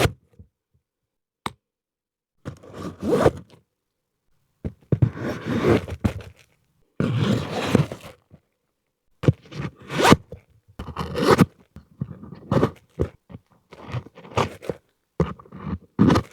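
Custom tool belt scraping and rustling as it is moved, in irregular bursts with silence between them, the bursts growing shorter and quicker toward the end.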